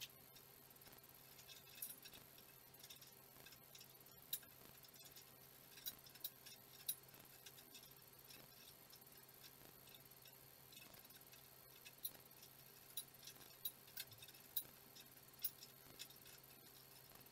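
Faint, irregular small metal clicks of a wrench and fittings as a go-kart's steering tie-rod linkage is assembled by hand, over a faint steady hum.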